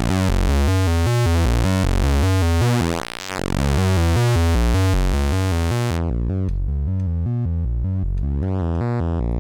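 Homemade wavetable oscillator built from flash memory, a voltage-controlled oscillator, a counter and converters, sounding one low steady note while its waveform is swept through the wavetable. The timbre shifts constantly from bright and buzzy; at about six seconds it turns smooth and dull, brightening again near the end.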